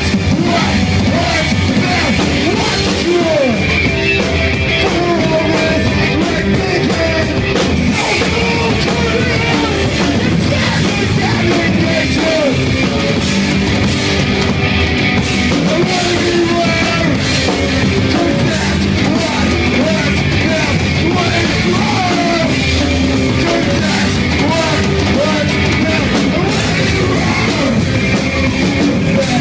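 A hardcore punk band playing live: distorted electric guitars and bass with fast, driving drums and crashing cymbals, and shouted vocals over the top.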